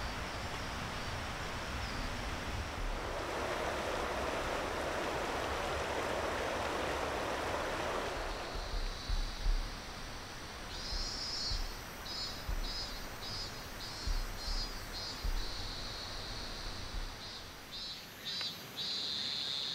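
Stream water rushing as a steady hiss for the first eight seconds or so, then high-pitched insects calling in pulses, about two a second, with a few low thumps of wind on the microphone.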